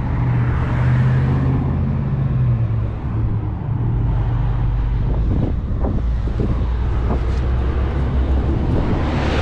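Dodge Challenger R/T Scat Pack's 6.4-litre HEMI V8 running with a steady low drone; its note drops lower about three seconds in. A few light knocks come midway.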